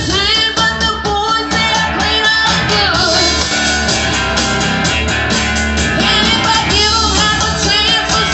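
Live rock band playing: electric guitar, bass guitar, keyboard and drum kit, with a lead singer.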